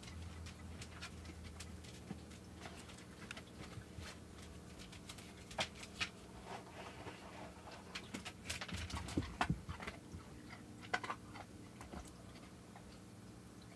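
Aquarium filter motor humming steadily, with scattered soft clicks and rustles through the middle of the clip.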